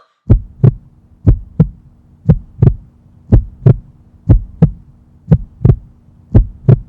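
Heartbeat sound effect: seven slow double beats, about one a second, over a steady low hum that cuts off abruptly at the end.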